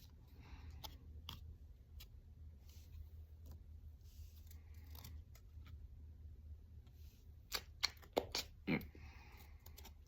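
Faint handling of a pack of baseball cards: soft rustles and slides of card stock and wrapper with small clicks, and a few sharper snaps about three-quarters of the way through, over a low steady hum.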